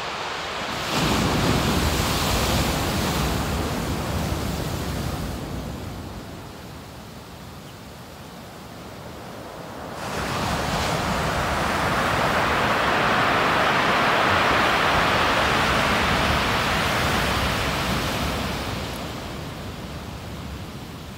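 Sea waves breaking and foaming up a shore. There are two long surges: one starts suddenly about a second in, and a louder one builds from about ten seconds and dies away near the end.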